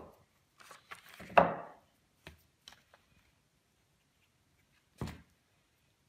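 Handling sounds on a wooden workbench: a handful of short knocks and clicks with quiet between them. The loudest is a solid wooden thunk about one and a half seconds in, a redheart-headed mallet set down on the bench. A few lighter clicks and a last knock near the end come from handling the small wedge and a plastic glue bottle.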